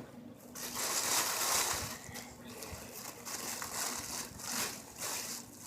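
Rustling and crinkling of a package bag being handled, loudest in the first two seconds, then softer rustles and scrapes.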